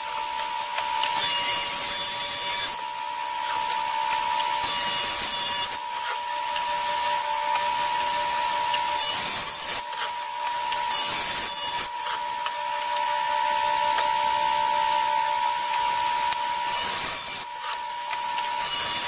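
Table saw running with a steady whine while hickory boards are ripped through it to trim their edges straight. Several passes of the blade through the wood each bring a louder stretch of cutting noise.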